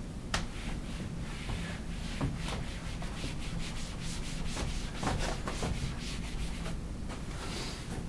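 Handwriting on a writing surface: a run of short scratchy strokes in quick succession.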